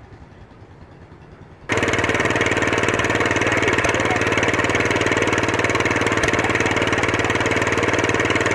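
A small garden-tractor engine running steadily with a fast, even beat. It starts abruptly about two seconds in and is much louder than the faint engine hum before it, then stops suddenly at the end.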